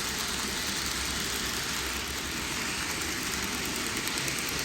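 N-gauge model trains running on the layout: a steady, even rolling hum with no distinct clicks or changes.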